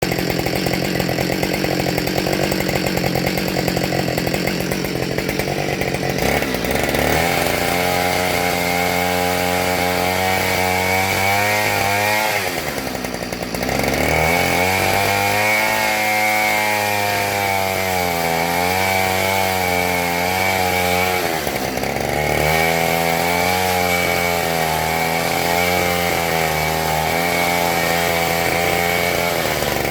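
Husqvarna 572XP two-stroke chainsaw running at high revs with an Oregon ripping chain, freehand-milling a black locust log along the grain. The engine note wavers under the cut, sags twice (about twelve and about twenty-one seconds in) and picks back up.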